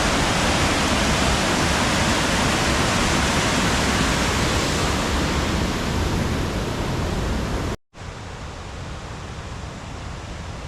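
Waterfall rushing: a steady, even wash of falling water. Just before the end it cuts off abruptly and comes back quieter.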